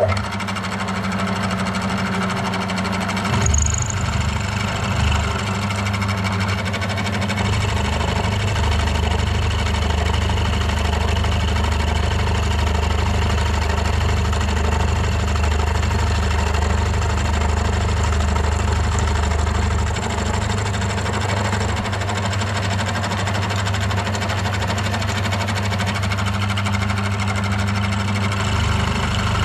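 7045 milling machine running steadily while its end mill cuts a flat along a soft mild steel bar.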